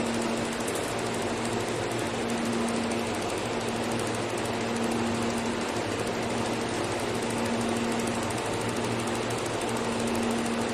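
Automatic pulsed laser welding machine running: a steady mechanical hum and hiss with a rapid buzzing rattle, and a low tone that switches on and off every second or two.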